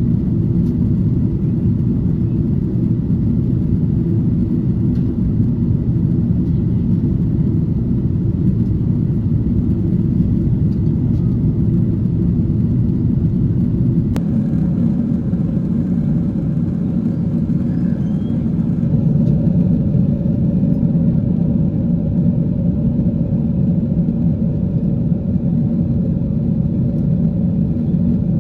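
Steady low rumble of cabin noise inside an Emirates Boeing 777-300 in cruise flight. A single click comes about halfway, after which a faint steady hum joins the rumble.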